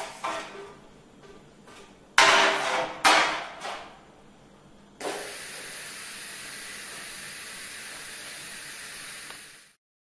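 Formed metal fittings knocking and clattering as they are handled on the finishing machine's fixture, with two loud sudden knocks about two and three seconds in. From about five seconds in, a steady hiss takes over and cuts off sharply near the end.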